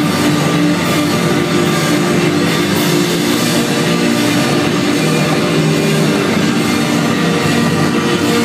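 Instrumental post-rock band playing live and loud: electric guitars holding sustained notes over drums, in a dense, unbroken wall of sound.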